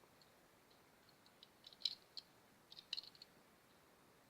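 Faint light clicks and taps from handling a small die-cast toy car, in two short clusters about halfway through and near three seconds, over near silence.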